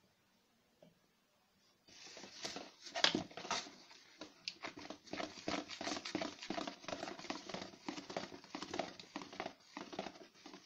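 Wire whisk beating thick cake batter in a plastic bowl: rapid, uneven scraping and clicking strokes that start about two seconds in and keep going.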